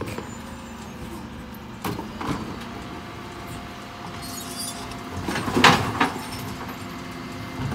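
Dennis Elite bin lorry idling at the kerb, with a couple of knocks as two wheelie bins are hooked onto its Terberg OmnIDEL electric lifters. A steady whine follows as the lifters raise the bins, then a loud clatter as they tip and the general waste drops into the Olympus body's hopper.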